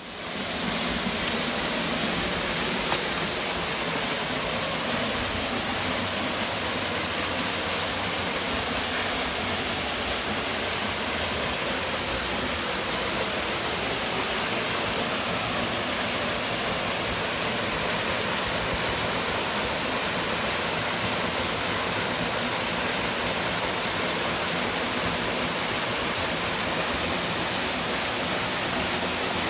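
Waterfall, a 15 m straight-drop fall: a steady, unbroken rush of falling water, cutting in suddenly at the start.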